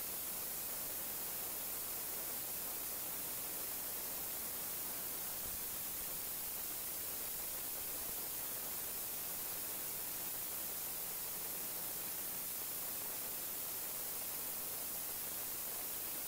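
Steady hiss of static, even and unchanging throughout, with no other sound standing out.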